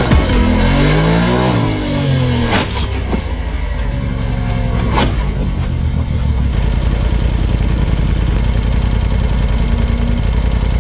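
Side-by-side UTV engine revving up and down, with two sharp knocks about two and a half and five seconds in as the machine tips over onto its side, then the engine running steadily at idle.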